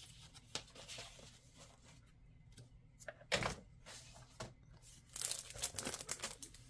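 Cellophane-wrapped pad of scrapbook paper being picked up and handled, its plastic wrapping crinkling and rustling in irregular bursts, with the loudest rustle about halfway through and another run near the end.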